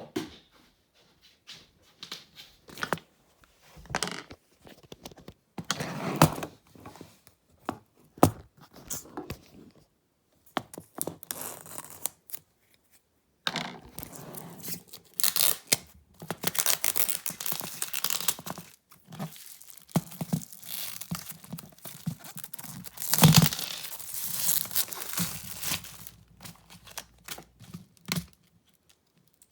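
Packaging being torn and crinkled open by hand: irregular rips and rustles with the odd knock, in longer, denser spells of tearing in the second half.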